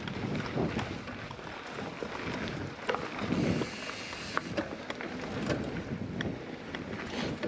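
Hardtail mountain bike being ridden on a dirt trail: tyres rolling and wind buffeting the microphone, with scattered sharp clicks and rattles.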